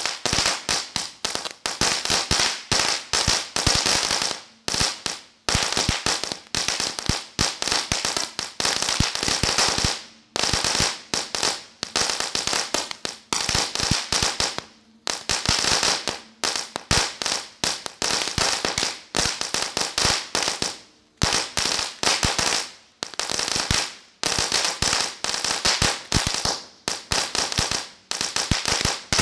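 Cracker Barrel consumer firework going off: a dense, rapid string of firecracker bangs, broken by short pauses every five or six seconds.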